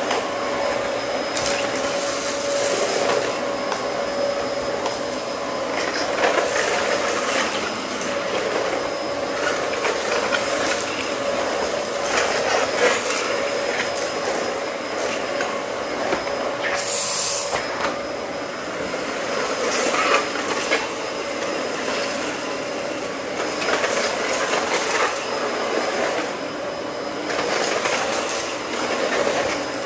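Dyson DC14 upright vacuum running over a hard concrete floor, its motor whining steadily while the spinning brushroll crunches and clicks on small debris as it picks it up.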